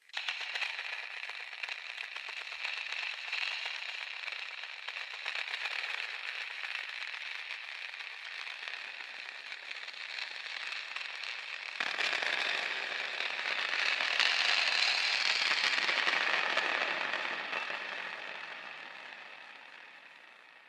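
Designed horror sound effect: a dense crackling, static-like noise texture that starts abruptly. About twelve seconds in it turns fuller and deeper, swells, then slowly fades out.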